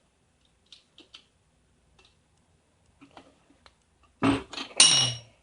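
Small metallic clicks and taps as a tool works the lock cylinder out of a Master Lock padlock body, then a loud rasping scrape with a brief squeak near the end as the cylinder is forced along its groove.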